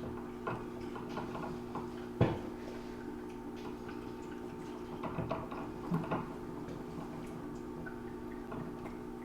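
Scattered light clicks and knocks of metal fittings being handled as the recore tool is taken off the isolation valve, the clearest knock about two seconds in, over a faint steady hum.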